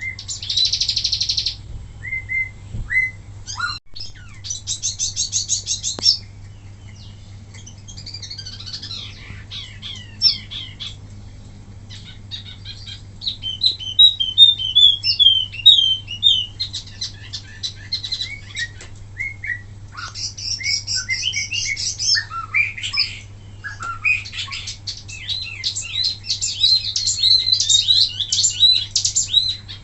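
Wambi mini songbird singing in rapid bursts of fast buzzy trills, chattering chirps and short whistled notes, with brief pauses between phrases; a steady low hum lies under it.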